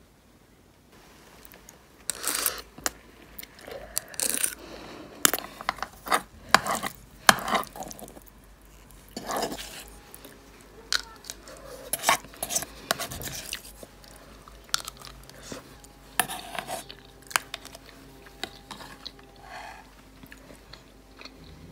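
Dishes and utensils being handled: an irregular run of clinks, taps and knocks, some with short crunchy noises.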